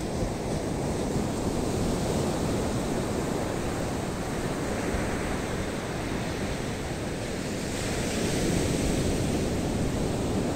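Sea surf breaking steadily on a sandy shore, with wind gusting on the microphone; a little louder near the end.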